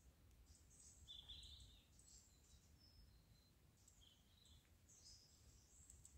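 Faint birdsong over near silence: scattered short, high chirps and calls from small birds, with a slightly louder call about a second in.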